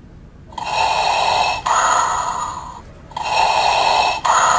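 Darth Vader alarm clock going off with Vader's respirator breathing sound effect, starting about half a second in. Slow, hissing in-and-out breaths, each pair about two and a half seconds long.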